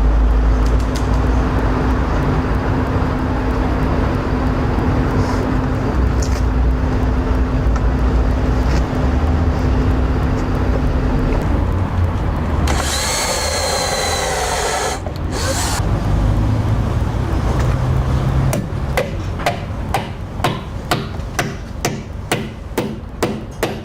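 Power drill running steadily for a long stretch while a timber doorstep is drilled and countersunk for fixing. Near the end come repeated hammer blows, about two a second, as a long nail is driven into the wood.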